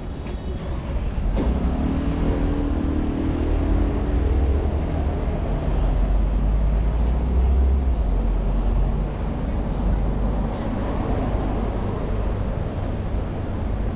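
A heavy road vehicle's engine passing on a city street: a deep rumble that swells about a second in, with the engine note sliding in pitch, and eases off after about nine seconds under steady traffic noise.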